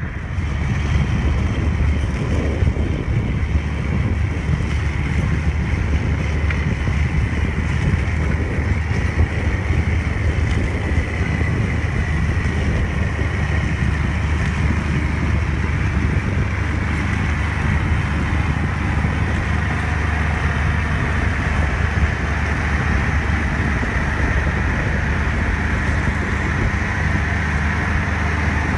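McConnell-Marc 1000 four-wheel-drive tractor's diesel engine running steadily under heavy load while pulling a disc ripper through corn stalks.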